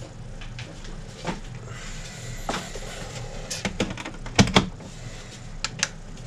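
Scattered clicks and knocks of objects being handled on a workbench, the loudest pair about four and a half seconds in, over a steady low hum.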